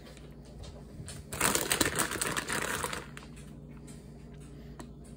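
Plastic bag of shredded mozzarella crinkling as a hand reaches in and scatters cheese, for about a second and a half starting a little over a second in; a couple of faint clicks near the end.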